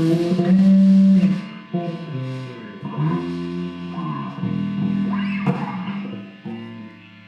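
Guitar playing a string of plucked notes that ring and change pitch one after another, then die away about six and a half seconds in, leaving a faint steady hum.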